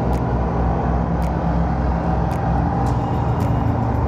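A steady low engine rumble, like passing or idling motor traffic, with a faint tick about once a second.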